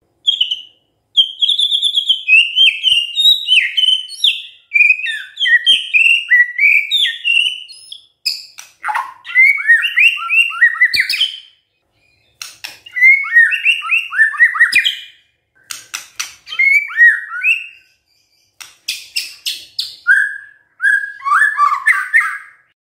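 White-rumped shama singing: rapid strings of varied whistled phrases, broken by runs of sharp clicks and short pauses.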